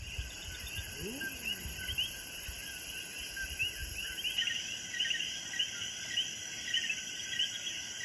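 Night chorus of coquí frogs, many short rising chirps overlapping, over a steady high-pitched insect drone.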